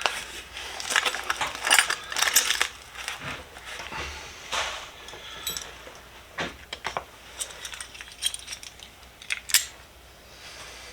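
Small vintage steel hand tools clinking and clattering against each other as they are handled and lifted out of a box: scattered metal clinks, denser in the first few seconds, with the sharpest ones about four and a half seconds in and near the end.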